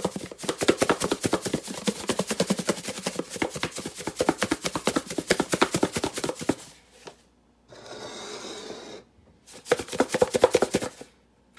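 Squirrel pieces being shaken in cornmeal coating inside a lidded glass food container: fast, continuous rattling and knocking for several seconds, a pause, then a shorter burst of shaking near the end.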